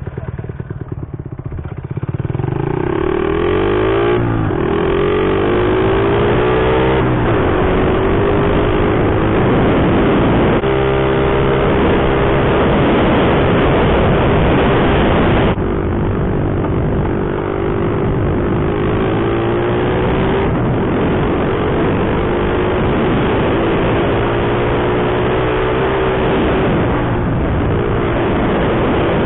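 Small single-cylinder four-stroke engine of a vintage Honda mini bike pulling away and running up through the gears, its pitch rising in steps. It then settles into a steady cruise.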